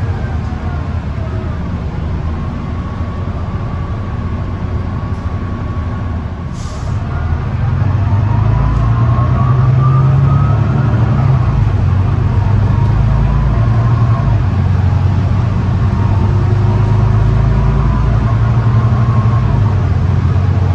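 Volvo B9TL double-decker bus running, heard from on board: the 9.4-litre six-cylinder diesel drones low under a driveline whine that glides up and down. There is a short hiss about six and a half seconds in. About eight seconds in the engine grows louder and the whine rises as the bus picks up speed.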